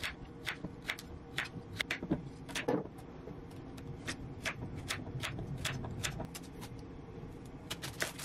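Kitchen knife chopping daikon radish, carrot and onion on a wooden cutting board: a run of sharp chops, about two to three a second, each blade stroke knocking on the board.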